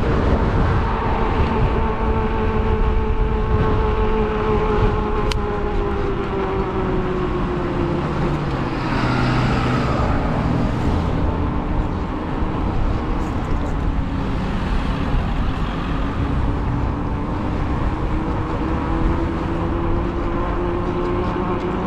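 Electric bike motor whining steadily while riding, its pitch sinking slowly through the middle and rising again near the end, over a low rumble of wind on the microphone and road noise. Traffic swells past about nine seconds in.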